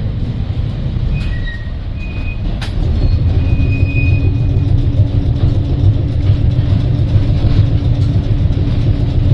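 Heritage electric tram running on its track: a steady low rumble with a few brief high squeals and a sharp click in the first few seconds. About three seconds in it grows louder and a steady hum joins the rumble.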